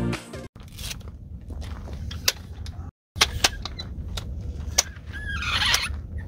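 Aluminium telescoping ladder being extended, its sections locking with sharp clicks a second or so apart and a short metallic rattle near the end. Low wind rumble on the microphone underneath.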